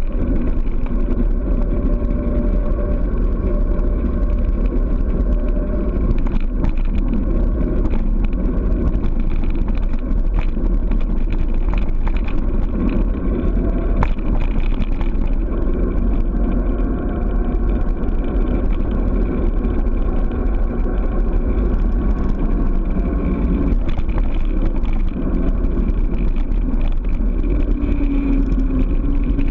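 Steady, loud wind rush on the microphone of a handlebar-mounted camera during a fast bicycle descent, mixed with tyre noise on asphalt and a few short clicks from road bumps. An oncoming car passes near the end.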